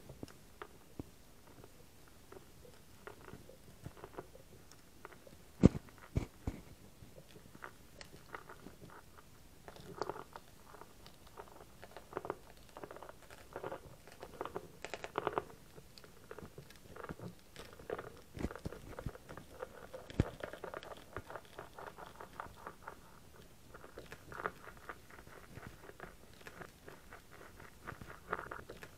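Steel rasp from a tubeless tyre plug kit being worked vigorously in and out of a puncture hole in a motorcycle tyre, making irregular crunching, scraping strokes against the rubber, with a sharp knock about six seconds in. It is cleaning and opening up the hole so that the plugger nozzle will fit.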